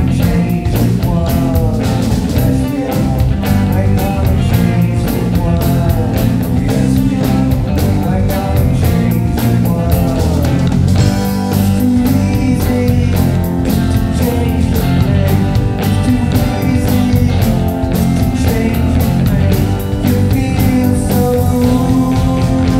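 Live psychedelic rock band playing: electric guitar, electric bass and a drum kit keeping a steady beat with regular cymbal strokes.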